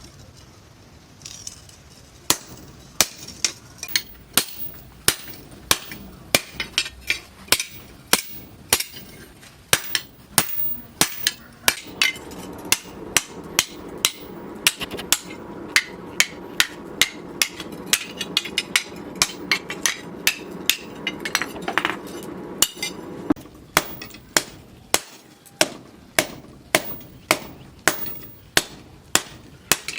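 Hammer blows on steel on an anvil, forging a knife blade: sharp ringing strikes in a steady rhythm of about two a second, starting about two seconds in.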